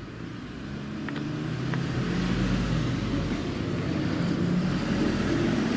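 A motor vehicle engine running in the background, growing louder over the first two seconds and then holding steady. Two light clicks come just after a second in.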